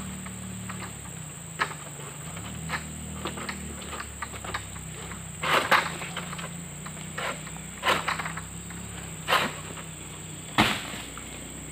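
A long-pole harvesting sickle (egrek) is pulled through oil palm fronds, making about six brief rustling, cutting swishes; the loudest and longest comes about five and a half seconds in, and a sharp one comes near the end. A steady high insect drone runs underneath.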